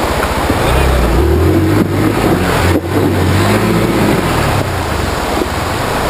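Fast river water rushing over rocks, with a Hero Xpulse 200's single-cylinder engine running underneath it. The engine comes in about half a second in, its pitch wavering, and fades back under the water near the end.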